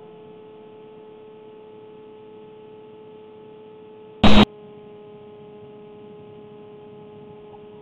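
Faint steady hum in a gap between music tracks, broken a little past halfway by one short, loud click.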